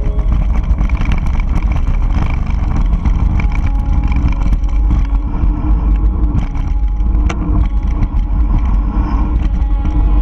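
Mountain bike riding down a dry dirt singletrack: wind buffeting the on-bike camera's microphone as a heavy rumble, with tyre noise and frequent sharp rattles and clicks as the bike goes over rough, rocky ground.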